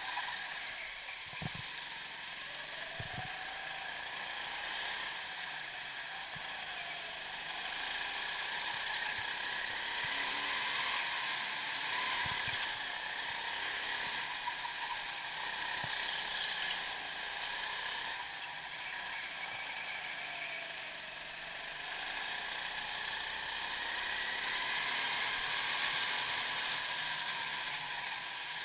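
Go-kart engine running as heard from an onboard camera, its pitch rising and falling slowly as the kart speeds up along straights and slows for corners.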